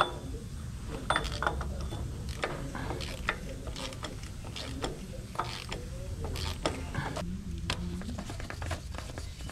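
Hand tools working on a car during an oil change: irregular metallic clicks and knocks, about one or two a second, over a low steady hum.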